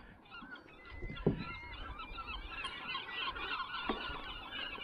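A flock of birds calling: many short, overlapping calls that grow louder and busier after about a second. Two soft knocks sound under them.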